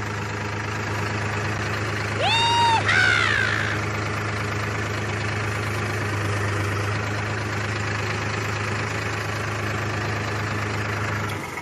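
New Holland TT4.55 tractor's diesel engine running steadily as the tractor rolls forward in second gear, slow range. About two seconds in, a brief loud high-pitched call rises and falls twice over the engine; its source is unclear.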